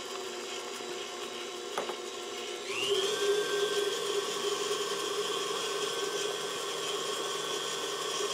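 Electric stand mixer running with its flat beater turning through thick pound cake batter, beating in an egg. There is a single knock about two seconds in, then the motor speeds up and runs louder and higher-pitched to the end.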